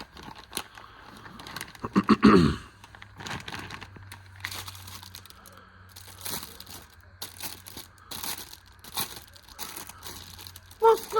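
Plastic packaging crinkling and rustling as it is handled, with scattered small clicks and taps. A brief voice sound about two seconds in.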